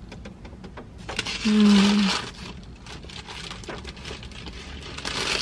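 A person chewing a bite of a breakfast sandwich, with small mouth clicks and the paper bag crinkling. A short steady hummed "mmm" comes about a second and a half in, over a louder rustle, and there is another rustle near the end.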